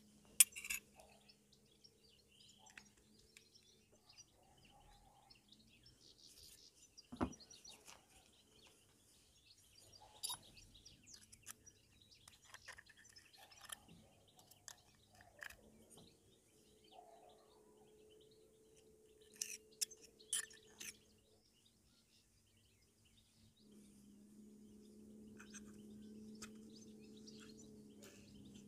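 Metal parts of a Honda Tact AB07 scooter's driven pulley (torque driver) being handled and assembled: occasional sharp clicks and clinks, the loudest right at the start and another about seven seconds in. Faint bird chirps sound in the background, and a faint steady hum comes in over the last few seconds.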